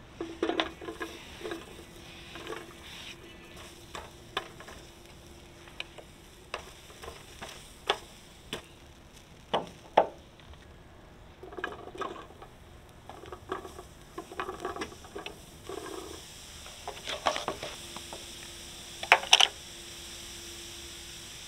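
Food being prepared with a utensil: irregular clinks, knocks and scrapes against cookware, with sharp knocks about ten seconds in and a cluster near the end. A faint steady hum comes and goes underneath.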